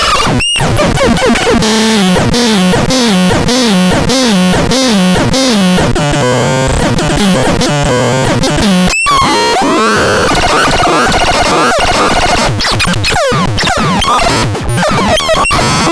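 Synthesizer playing harsh, noisy electronic tones whose pitch wobbles up and down in a regular cycle, a little under twice a second. The sound cuts out briefly twice, near the start and about nine seconds in. After about ten seconds it turns into a denser, noisier texture with sweeping pitch glides.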